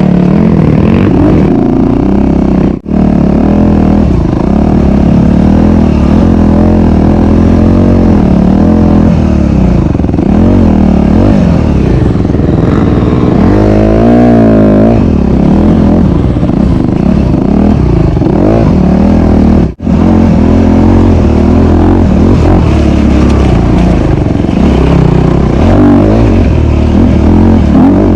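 Dirt bike's four-stroke single-cylinder engine, a Honda CRF250RX, running hard under load as it is ridden, its pitch rising and falling with the throttle, with a quick run of revs up and down about halfway through. The sound drops out for an instant twice.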